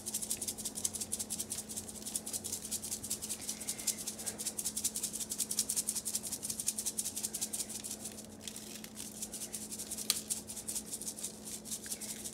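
Dry rib rub being shaken from a plastic shaker bottle: a fast, even rattle of the spice granules that eases off after about eight seconds, followed by a few single clicks.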